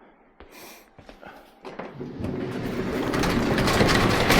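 Kubota V2203 four-cylinder diesel engine running with a dense clattering rattle, swelling steadily louder over the last two and a half seconds.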